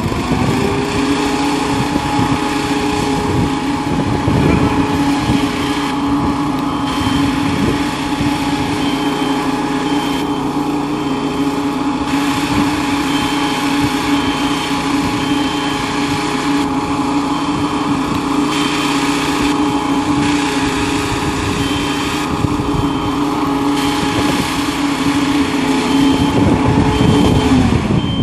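Fire brigade positive-pressure ventilator running steadily, a loud even fan-and-motor hum, its pitch sagging just before the end as it shuts down.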